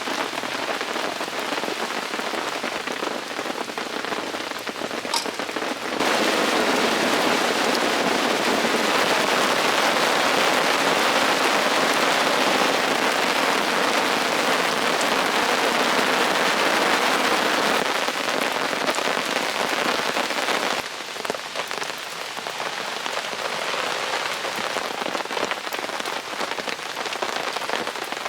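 Steady heavy rain falling. About six seconds in it turns abruptly louder and fuller, then drops back to the lighter sound about twenty-one seconds in.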